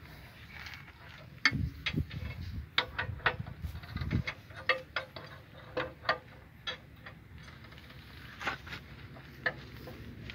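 A socket wrench on a long steel bar working a bolt on an excavator's undercarriage track guard: irregular metallic clicks and knocks, with a few heavier thuds in the first few seconds.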